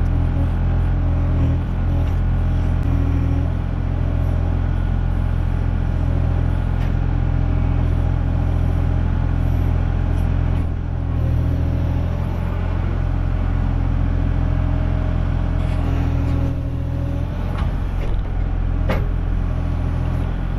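Kubota KX040 compact excavator's diesel engine running steadily while the arm rakes palmetto roots out of the ground, heard from the operator's seat. A couple of sharp knocks come near the end.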